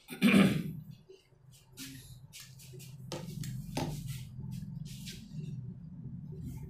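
Classroom room noise: a brief loud noise just after the start, then scattered light clicks and rustles over a steady low hum.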